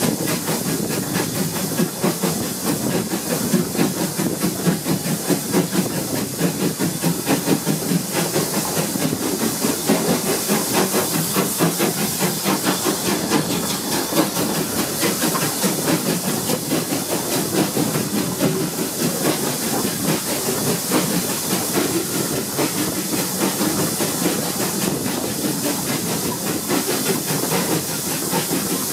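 Steam locomotive running just ahead, heard from an open carriage window: a fast, steady beat of exhaust chuffs over continuous steam hiss and the rumble of the wheels on the rails.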